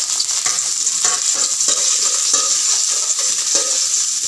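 Ginger-garlic paste and whole spices sizzling in hot oil in a stainless steel kadai, with a metal spoon scraping against the pan in irregular strokes, about two a second, as it is stirred and sautéed.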